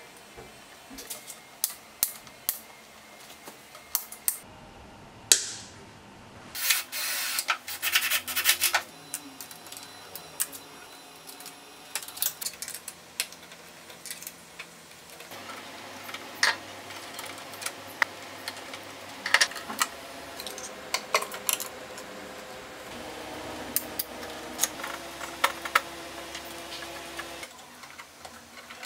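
Irregular clicks, taps and clatter of hard parts and tools being handled, with a faint steady hum through the second half.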